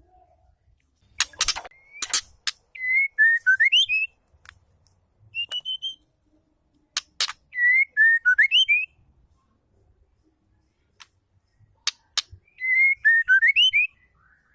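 Female white-rumped shama calling: a few sharp ticking notes followed by a short whistled phrase that dips and then rises, given three times with pauses, plus one brief whistle in between.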